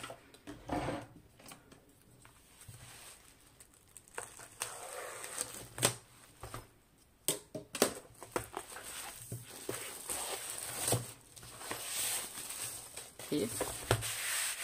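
Plastic shrink-wrap film being torn open and pulled off a pencil case, crinkling in irregular crackles that grow denser near the end.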